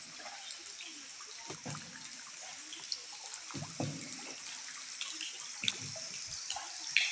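Boat paddle dipping and pulling through the water of an underground river, a splash and swirl about every two seconds, with scattered drips and clicks over a steady high hiss.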